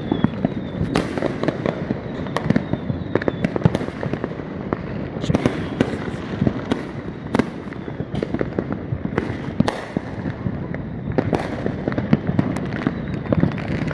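Fireworks going off: an irregular, rapid run of sharp bangs and pops, several a second at times, over continuous crackling.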